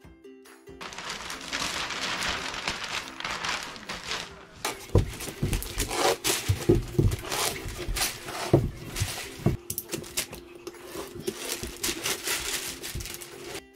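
Clear plastic sheeting crinkling and rustling as it is handled, smoothed and pressed down along the floor edge, with a run of louder sharp rustles and knocks in the middle.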